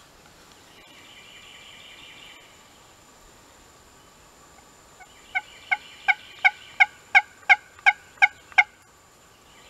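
Turkey call yelping like a hen: a run of ten short, evenly spaced yelps, about three a second, starting about five seconds in and growing louder after the first couple.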